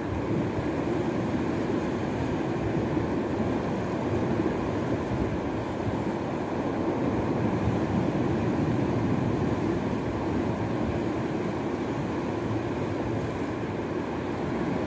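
Steady rushing noise of wind buffeting the microphone, mixed with the sea breaking on the shore.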